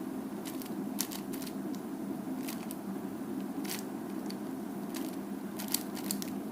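Layers of a 4x4 speedcube being turned through an algorithm: a run of quick, irregular plastic clicks. A steady low hum runs underneath.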